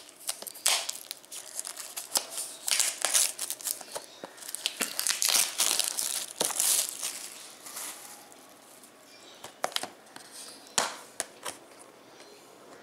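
Plastic shrink-wrap being torn and peeled off a Blu-ray case, in a run of loud crinkling and crackling that dies down after about eight seconds. Near the end come a few sharp clicks as the plastic case is unlatched and opened.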